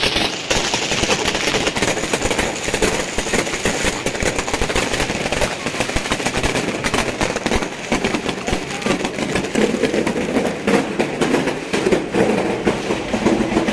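Fireworks and firecrackers going off in a dense, rapid crackle of overlapping pops and bangs.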